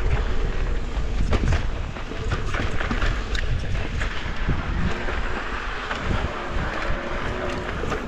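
Mountain bike riding a dirt trail: wind buffeting the microphone in a steady low rumble, with tyres rolling over dirt and rocks and scattered sharp clicks and knocks from the bike.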